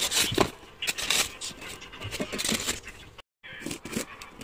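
Packing materials being handled: plastic wrap crinkling and styrofoam scraping, with irregular rustles and small knocks. The sound drops out briefly about three seconds in, then handling of a taped cardboard box follows.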